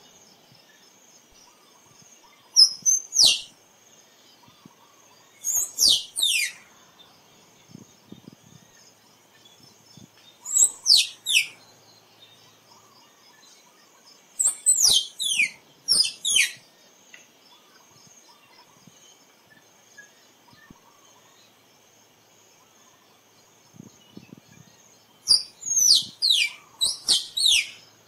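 Squirrel calling: five bursts of two to four high, steeply falling chirps, several seconds apart, over a faint steady insect hum.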